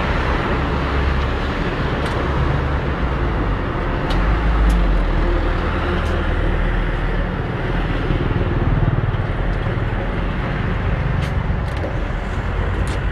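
Walk-behind concrete saw's petrol engine running steadily.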